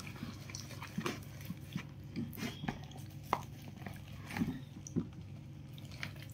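Wet squelching and leafy rustling as fresh herb sprigs are stuffed by hand into the cavity of a raw whole chicken, in scattered soft irregular bursts over a low steady hum.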